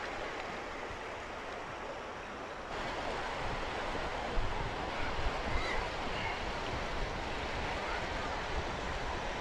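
Red Sea waves washing over shoreline rocks: a steady rush of surf that gets louder about three seconds in.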